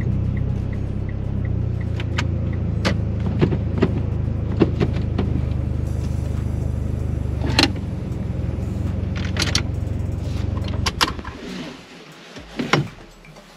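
Mitsubishi Lancer Evolution X's turbocharged four-cylinder idling steadily, heard from inside the cabin, with scattered clicks and knocks. About eleven seconds in the engine is switched off and the idle stops, leaving only a few clicks.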